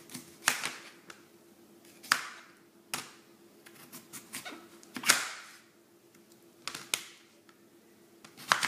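Kitchen knife cutting through a chayote and knocking on the cutting board: about six sharp knocks at irregular intervals of one to two seconds, with a few lighter taps between.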